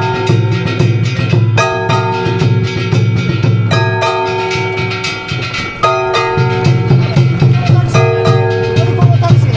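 Gion festival float music: drums and bells struck in a rapid, dense rhythm, with a pitched melody line that changes note every second or two.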